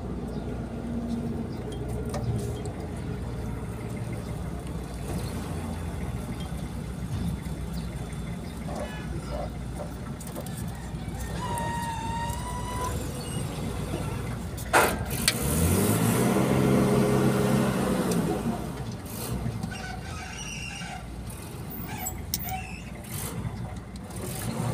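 Motor vehicle engines rumbling steadily in a work yard. About fifteen seconds in, a sharp click is followed by an engine revving up, holding for a few seconds and easing off. A brief whistle-like tone sounds a little before that.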